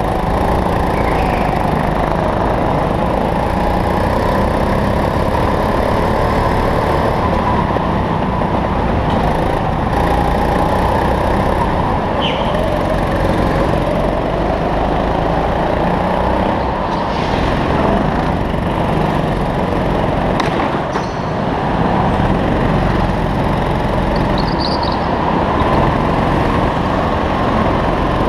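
Go-kart petrol engine running hard, heard from on board, its note rising and falling as the kart accelerates and lifts through the corners. A few brief high squeals cut through now and then.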